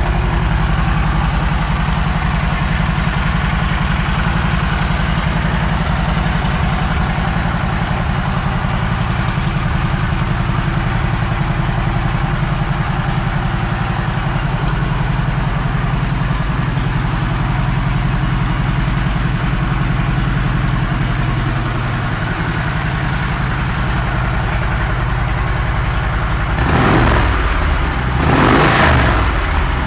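Harley-Davidson Road Glide Ultra's Twin Cam 103 V-twin idling steadily through Vance & Hines pipes, then blipped twice in quick succession near the end.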